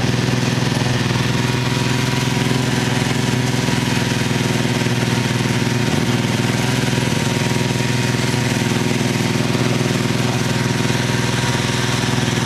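Snowmobile engine running steadily at speed, a fast even engine beat over a broad hiss.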